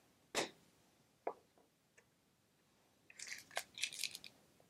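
Faint handling of small plastic Easter eggs and their stickers: a couple of light clicks, then about three seconds in a short stretch of crinkling and crackling.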